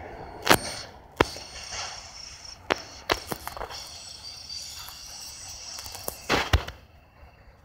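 A CN freight train rolling slowly past as it turns onto the Holly Subdivision. About six sharp metallic clanks come at uneven intervals, the loudest pair near the end, over a faint high wheel squeal that fades out about seven seconds in.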